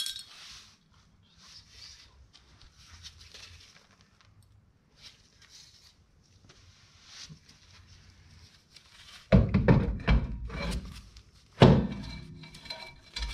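Metal parts of a car's rear wheel hub assembly being handled and fitted: quiet scraping and light clicks, then two loud spells of heavy thumping and rumbling near the end.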